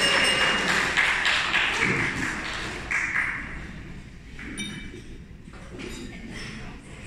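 A loud wash of crowd noise fades away over the first few seconds. After it come a few bright, short pings of wine glasses clinking in a toast.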